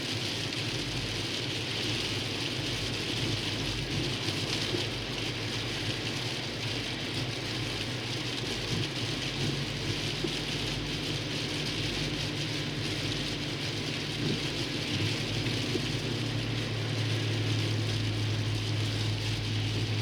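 Road noise inside a car driving on a slushy, snow-covered highway: a steady hiss of tyres through wet slush over a low engine drone. The drone grows stronger in the last few seconds.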